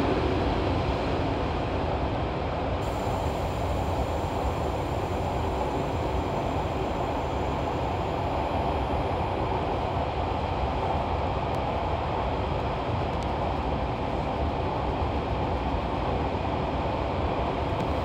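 Fukuoka City Subway 1000-series train running through a tunnel, heard from inside the car: a steady rumble of wheels on rail and running gear. A faint high whine joins about three seconds in.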